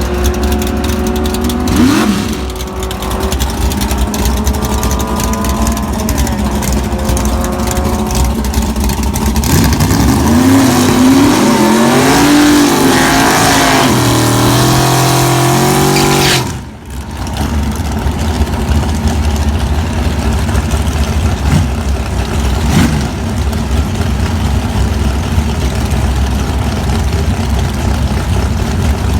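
Iron-headed W2 340 small-block Mopar V8 in a drag car, revving with its pitch rising and falling, loudest for several seconds past the middle. About two-thirds in the sound drops out sharply, then the engine runs on at a steadier, lower pitch.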